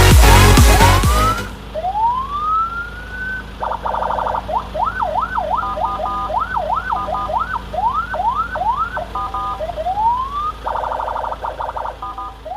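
Senken CJB100BD electronic vehicle siren cycling through its tones: slow rising whoops, a fast up-and-down yelp and short blasts of a harsh buzzing horn tone. Electronic dance music plays over the start and stops about a second and a half in.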